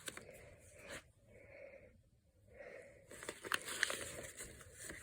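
Faint breathing close to the microphone, two soft breaths, then a cluster of crackles and clicks from paper and an envelope being handled, about three seconds in.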